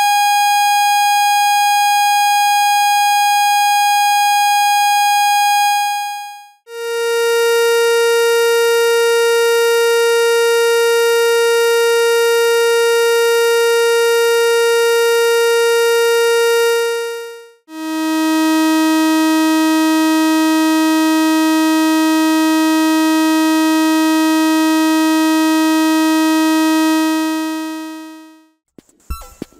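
Square-wave oscillators of a DIY analog drum machine's metallic noise source, heard one at a time: three steady, buzzy tones of about ten seconds each, each lower in pitch than the last and each fading out before the next begins.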